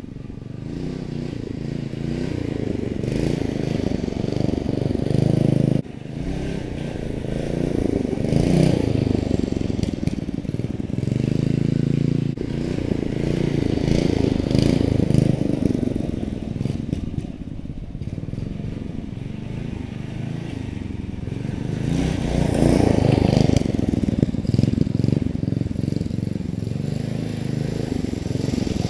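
212cc single-cylinder engine of a CVT mini bike running, repeatedly revving up and easing off in long swells a few seconds apart.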